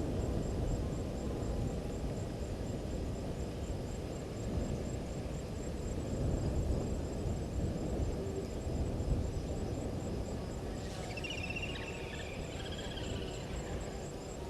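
Open bush ambience at a waterhole: a steady low rumble, a faint high insect trill pulsing evenly, and a short warbling bird call about eleven seconds in that lasts a couple of seconds.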